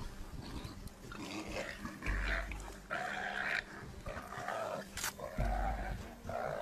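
Leopard and warthog sow fighting: a series of harsh animal calls and growls, each about half a second long, repeated several times.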